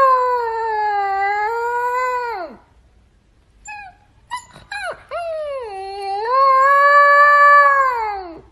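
Young puppy howling: two long howls, each dipping and rising slightly in pitch before trailing off, with a couple of short yips between them.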